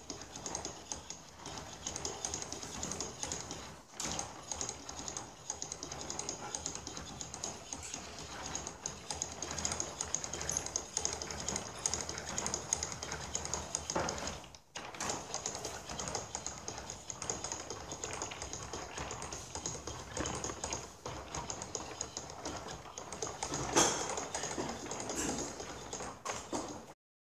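Hand-cranked wooden mechanical planetarium: its plywood gear train clattering as the crank turns, the wooden gear teeth meshing in a dense, steady stream of rapid clicks, with two short breaks.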